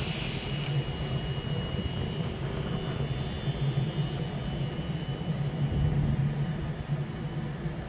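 Train running at the station, a steady low drone, with a faint high whine over the first few seconds.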